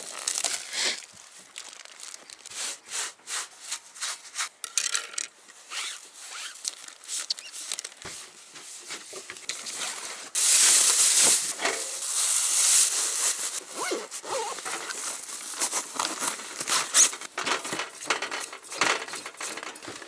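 Rustling and handling noises: plastic bags and a soft fabric bag crinkling and rubbing as gear and food are packed away, with scattered light knocks. The loudest rustling comes about halfway through and lasts a few seconds.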